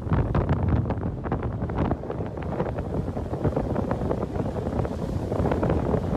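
Tropical-storm wind buffeting the microphone: a dense, continuous low rush in gusts, with many short sharp pops.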